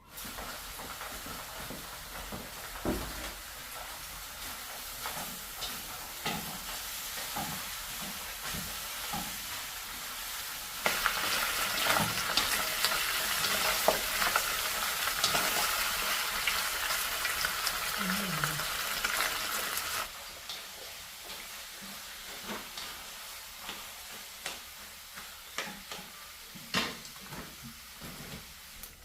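Food sizzling and frying in hot fat in a pan, with short clicks and scrapes of a utensil stirring it. The frying is louder for about nine seconds in the middle, starting and stopping abruptly.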